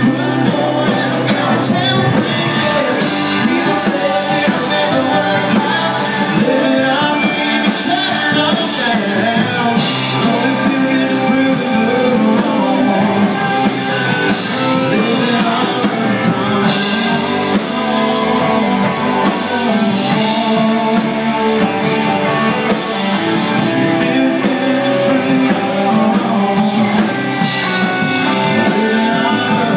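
Live country-rock band playing loud through a PA, heard from the crowd: a female lead singer over electric guitars, keyboard and drums.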